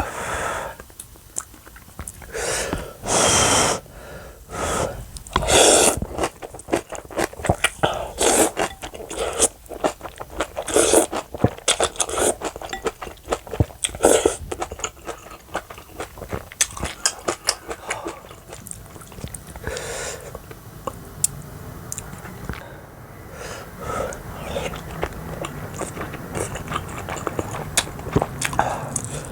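Close-miked eating sounds: irregular chewing, biting and crunching of food, with short scrapes and clicks.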